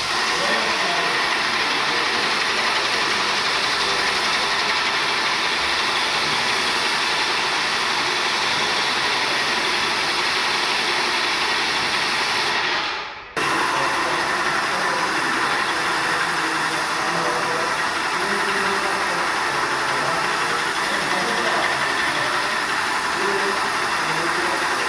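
Paint sprayer running with a steady, loud spraying hiss over a motor. It cuts out briefly about halfway through, then starts again.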